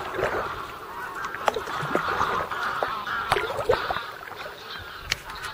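A flock of geese honking, with many overlapping calls.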